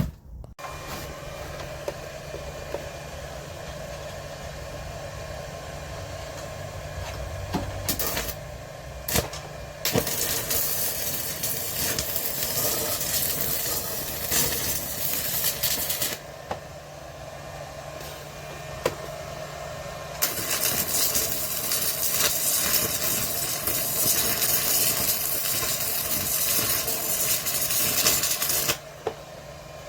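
Welding arc crackling and sizzling in three runs: a short one about eight seconds in, a longer one of about six seconds, and a run of about eight seconds ending just before the end. A steady hum runs underneath throughout.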